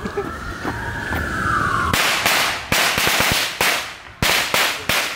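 Consumer firework going off on the street: a whistling tone rises and falls for about two seconds, then a rapid string of about ten sharp bangs follows, roughly three a second, each trailing off briefly.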